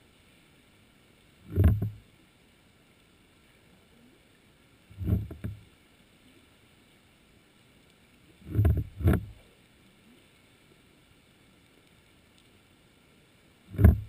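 Six dull, low thumps, heard underwater through a camera housing over a faint steady hiss: a single one, then two pairs in quick succession, then a last single one near the end.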